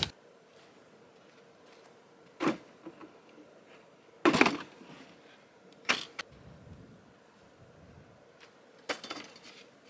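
Folding table with a white plastic top and metal legs being handled and unfolded: four separate clunks and rattles, the loudest about four seconds in, with quiet between them.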